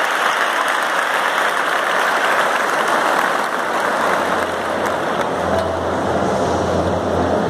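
Large arena crowd applauding and cheering, a dense, steady wash of noise. From about halfway a low steady hum comes in underneath.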